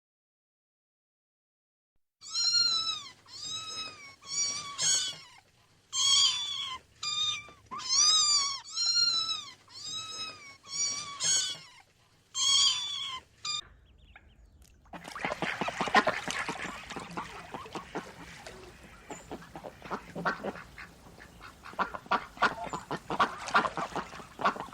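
A small animal calling over and over, about fifteen short cries that each rise and fall in pitch, in quick runs. After a brief pause, a stretch of rustling and rapid clicking follows.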